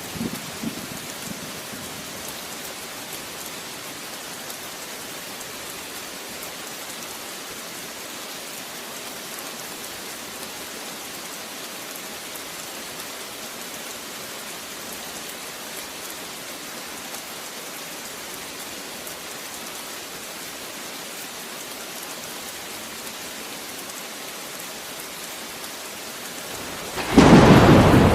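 Rain falling steadily, an even hiss, with the last of a thunder rumble dying away in the first second or so. About a second before the end a sudden loud thunderclap breaks in.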